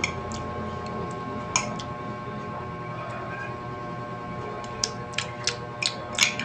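Metal teaspoon clinking against the inside of a ceramic mug while scooping avocado: a sharp clink at the start, another about a second and a half in, then a quick run of five or six clinks near the end, over a steady low hum.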